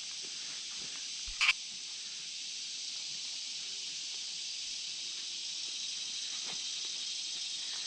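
Steady high-pitched hiss of an insect chorus in summer woodland, with one brief sharp click about a second and a half in.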